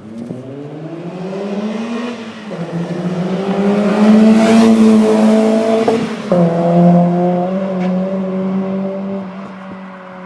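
BMW E30 accelerating hard through the gears. The engine note climbs, drops at a gear change about two and a half seconds in, and climbs again to its loudest around four to five seconds. It drops at a second shift about six seconds in, then holds and fades toward the end.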